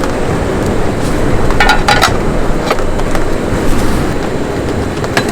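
Steady rain falling, a dense low rush of noise, with a couple of light clicks about two seconds in.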